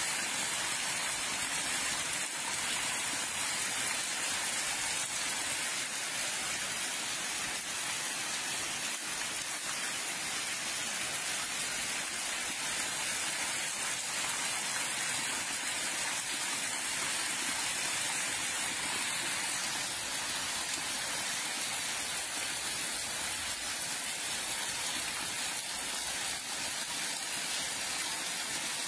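Heavy rain falling steadily, an even hiss with no let-up.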